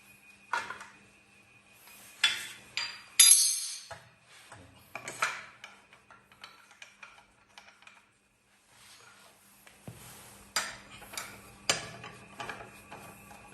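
Metal parts and tools of a saw machine clinking and knocking as it is taken apart, with a bright ringing metallic clink about three seconds in. A low steady hum sits underneath at times.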